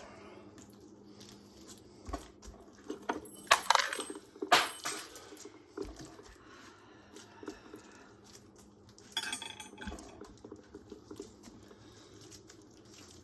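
Whole pineapple being rolled and pressed on a kitchen counter to loosen its flesh: scattered light knocks and clinks, with a cluster about two to five seconds in and another short burst near ten seconds.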